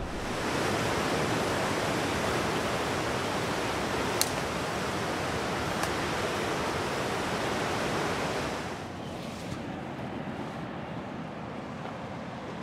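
Ocean surf on a rocky shore: a steady rushing wash that drops in level about nine seconds in. A single sharp click sounds about four seconds in.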